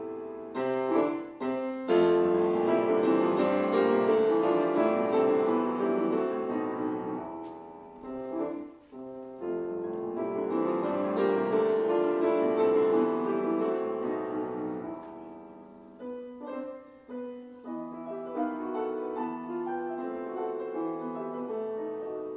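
Steinway grand piano played solo in a classical piece: full, sustained chords that swell and fade twice, then lighter, separate notes over the last several seconds.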